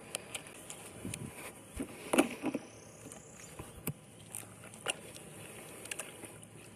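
A whole raw turkey being handled in a plastic storage tub: scattered knocks, rustles and soft thumps of plastic and meat, the loudest cluster about two seconds in.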